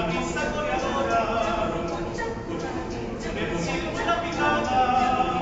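Small mixed choir of women's and men's voices singing a cappella, several parts sounding together on held notes.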